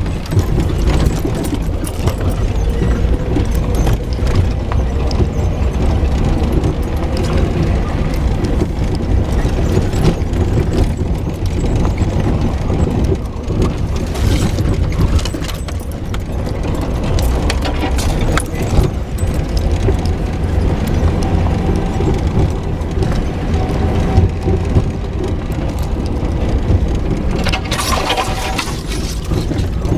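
Jeep driving slowly over a rough, rocky dirt trail: a steady low engine rumble heard from inside the cabin, with tyres crunching over gravel and frequent knocks and rattles from the bumpy ground. Near the end comes a louder scratchy stretch.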